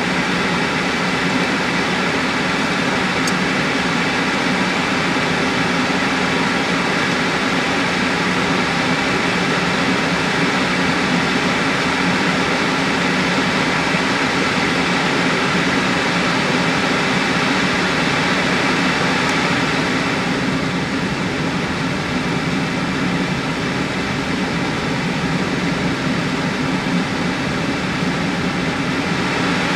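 Nissan Xterra driving a rough off-road trail: steady engine and tyre noise. The sound eases a little about twenty seconds in.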